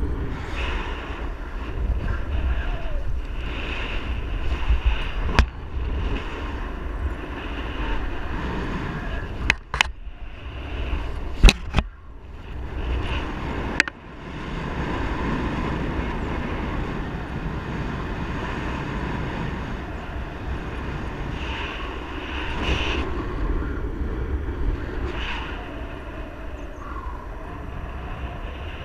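Wind rushing over the camera microphone of a paraglider in gliding flight, a steady rush with low rumble. A few sharp clicks or knocks break through in the middle stretch.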